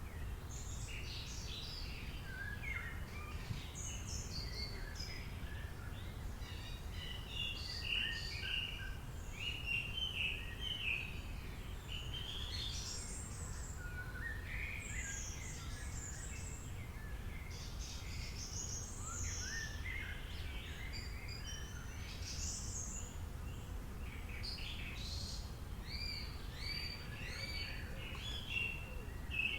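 Several birds chirping and singing over one another, with short calls and trills all through and no single bird dominating. A steady low rumble runs underneath.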